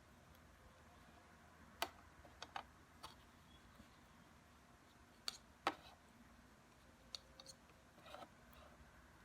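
A scattering of light, sharp clicks and taps, about nine in all, from small hard-plastic mount parts and a mixing stick being handled during epoxy gluing.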